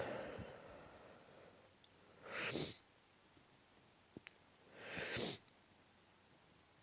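A person sneezing and breathing hard through the nose in an allergic sneezing fit: a sneeze at the start trailing off into a long exhale, then two short, sharp breathy bursts about two and a half seconds apart.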